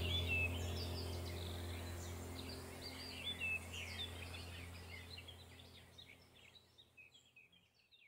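Small songbirds chirping in quick short notes over a low steady hum, the whole soundtrack fading out gradually to near silence by the end.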